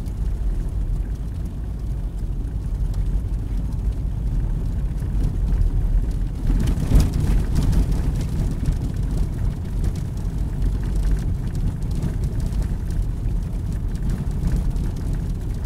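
Car driving slowly over a rough, snow-covered road, heard from inside the cabin: a steady low rumble of tyres and engine, with a brief louder jolt about seven seconds in.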